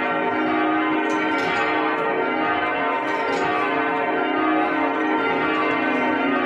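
Ring of six newly restored church bells rung by ropes and being raised, heard from the ringing chamber below. Strokes follow one another steadily and overlap in a continuous ringing.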